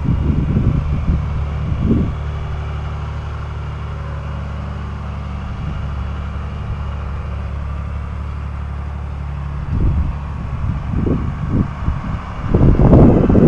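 A vehicle engine running steadily with a low hum while pulling a structure down, with louder, rough surges in the first couple of seconds and again from about ten seconds in, loudest near the end.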